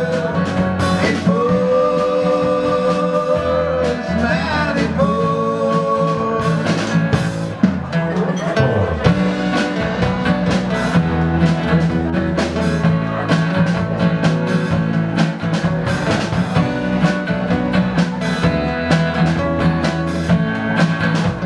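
A live band playing a rock/country-style song on two acoustic guitars, bass guitar and drum kit, with a steady drum beat. Two long held notes stand out over the first seven seconds.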